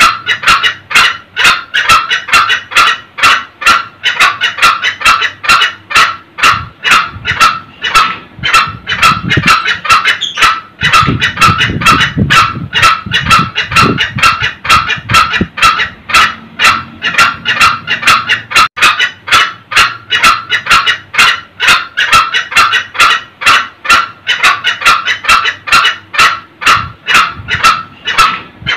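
Green junglefowl cackling (ngekek): a fast, unbroken run of short, loud kek notes, several a second.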